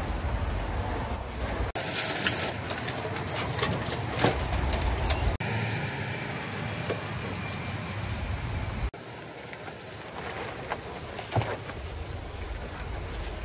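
Steady rain and the hiss of traffic on a wet road, with crinkling and rustling of a plastic mesh rain sheet being handled. The sound breaks off sharply and resumes three times.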